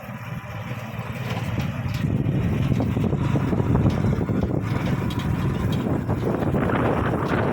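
Tuk tuk running along a rough, bumpy road, its motor and rattling carriage mixed with wind on the microphone; it grows louder over the first couple of seconds, then holds steady.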